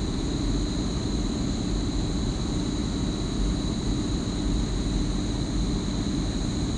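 EN63B electric multiple unit running past, a steady rumble with a constant high whine over it.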